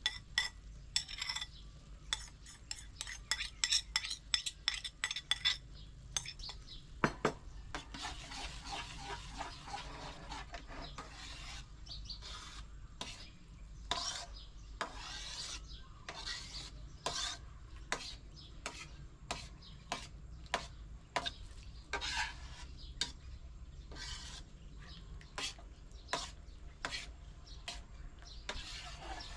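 A metal utensil stirring and clinking against a cooking vessel, in irregular runs of quick taps, with a stretch of steady hiss about eight to eleven seconds in.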